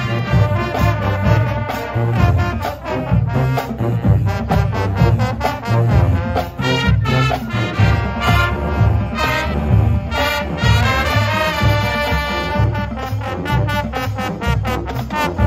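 Marching band playing a field show: a full brass section with the drum line keeping a steady, driving beat.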